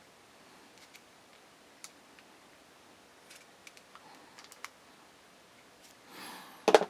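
Scattered faint metallic ticks and clicks of a steel punch and pin working against the pistol's sear and frame, with two sharp, loud clicks near the end.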